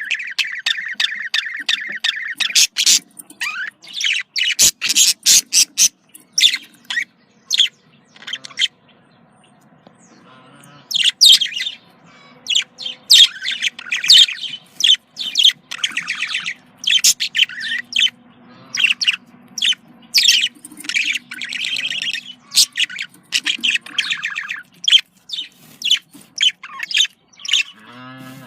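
Budgerigars chirping and chattering in a rapid string of short, high-pitched calls, with a brief lull about a third of the way through.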